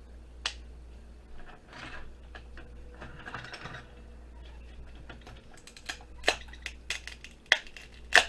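Pliers gripping and snapping components off a circuit board: a run of sharp clicks and cracks, sparse at first, then more frequent and louder in the second half, with the loudest snap near the end.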